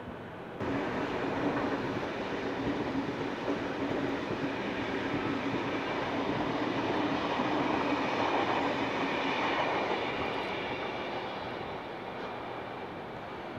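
V-set double-deck electric intercity train (two sets coupled) passing on the tracks: steady running noise with a low hum that swells to its loudest a little past the middle, then fades.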